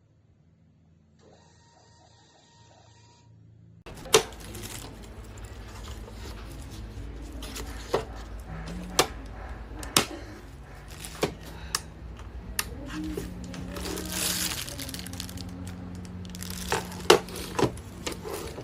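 Background music that comes in about four seconds in, with low notes that step in pitch and sharp clicks every second or so, after a few seconds of faint sound.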